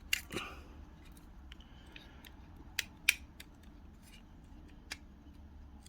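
A few separate sharp clicks and taps of small parts of a die-cast toy car being handled, over a quiet background.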